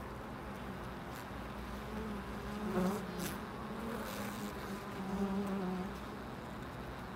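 Honey bees buzzing at the hive entrance: a steady hum that swells as single bees fly close, loudest about three seconds in and again around five seconds, with a brief tick just after the first swell.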